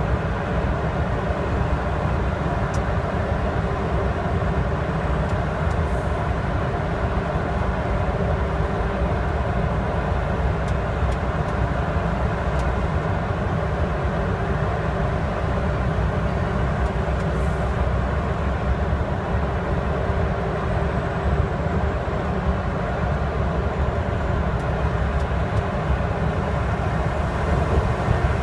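Steady drone of a 2008 Mercedes-Benz Axor truck's diesel engine and tyre noise, heard inside the cab while cruising at constant speed through a road tunnel.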